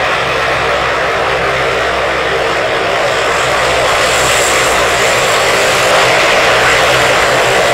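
C-130H Hercules taxiing with its four Allison T56 turboprop engines running: a steady propeller-and-turbine drone. It grows a little louder from about four seconds in, where a high turbine whine joins as the aircraft turns toward the listener.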